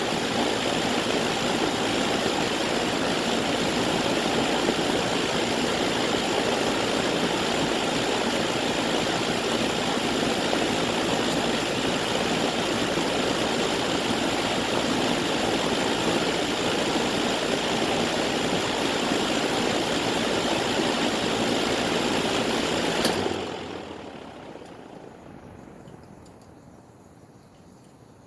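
Goodman air conditioner's outdoor condensing unit running, its condenser fan giving a steady rush of air with a faint hum. Near the end it shuts off with a click and the sound dies away over a few seconds as the fan spins down.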